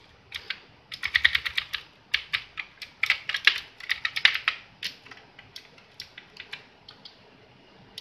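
Keys of a YiShe mechanical keyboard being pressed by a finger in quick succession, a fast run of sharp clicks that thins out and grows fainter over the last few seconds.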